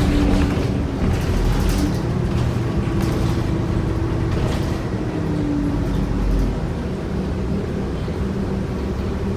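New Flyer D40LF diesel city bus under way, heard from inside the cabin: a steady low drivetrain rumble with a whine that fades in and out three times, and a few light rattles early on. The uploader puts the bus down as having a bad transmission.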